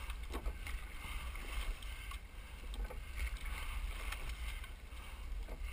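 Water rushing and lapping along the hull of a rowing shell, a double scull under way, over a steady low rumble. A few light, sharp clicks come at intervals.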